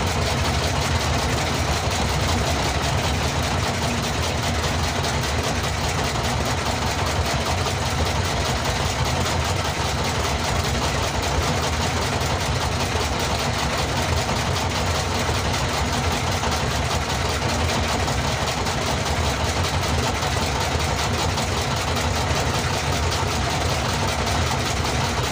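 A fishing boat's engine running steadily: an even, low drone.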